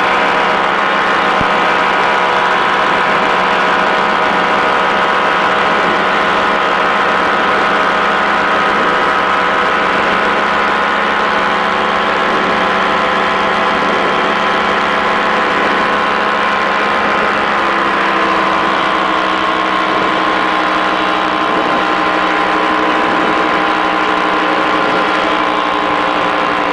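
The engine and propeller of a Quad City Challenger II ultralight running in flight, a steady drone. Its pitch drops a little about two-thirds of the way through and again near the end, as the throttle comes back.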